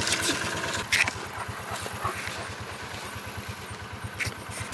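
A small engine running steadily, with an even, fast low putter, and a single sharp click about a second in.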